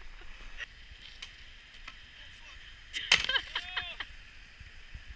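A snowboarder falling on hard-packed snow: one sharp impact about three seconds in, followed at once by a short cry.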